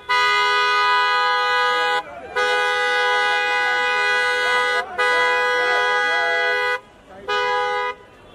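Car horn held down in long honks with a two-note chord: about two seconds, then about two and a half, then nearly two, then a short one, and it starts again right at the end. Crowd voices sound faintly in the gaps.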